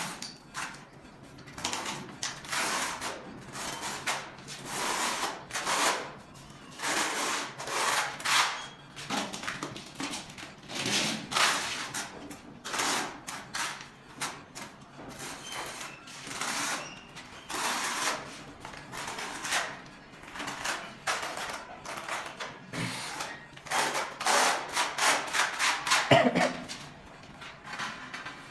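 Notched trowel scraping and combing tile adhesive across a cement floor in repeated strokes, about one a second. A sharper knock comes near the end.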